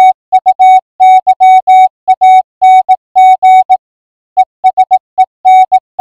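Morse code sent as a single steady beep, keyed into short and long elements, with a longer pause about four seconds in.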